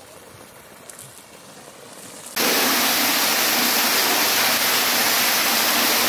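Faint hiss of water, then about two seconds in an abrupt switch to loud, steady splashing: water pumped by a solar pump pours over the top of a vertical delivery pipe and falls into a water tank.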